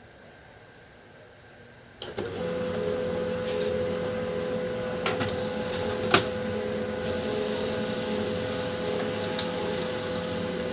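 Canon LBP2900 laser printer starts up about two seconds in and runs steadily, printing a test page: a motor hum with a constant tone and a few clicks as the paper feeds through, one of them loud near the middle.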